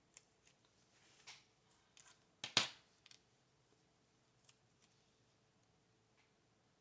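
Paper and sticker handling on a desk: a few soft clicks and rustles, with one louder short rasp about two and a half seconds in, as planner stickers are peeled and placed.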